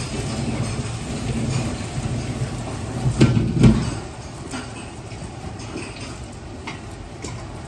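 Steady low roar of a commercial wok range while yellow noodles fry in an iron wok. About three seconds in come two loud metal clanks of wok and ladle. After them the roar is lower, with a few light clinks of the ladle in the wok.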